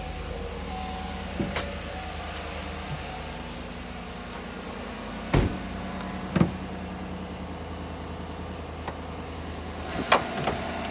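A 2017 Chevrolet Silverado 1500's 5.3-litre V8 idling steadily just after start-up. Several sharp clunks from the truck's door and hood latch cut through it, the loudest near the end as the hood is opened.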